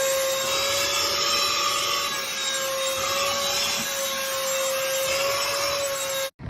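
A steady machine whine with one held, slightly wavering tone over a rough hiss, which cuts off suddenly near the end.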